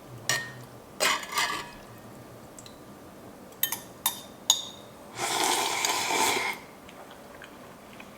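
Close-miked mukbang eating sounds: a few light clicks and mouth smacks, then a slurp of Shin Ramyun lasting just over a second, about five seconds in.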